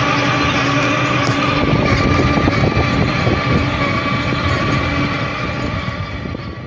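Tractor running under load with a Farmtec Rotar 320 spading machine digging into the soil, a steady mechanical drone with a high whine held over it. It fades out toward the end.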